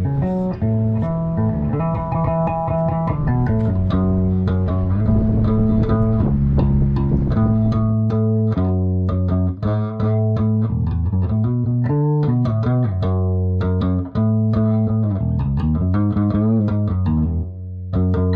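Background music: plucked guitar notes over a bass line.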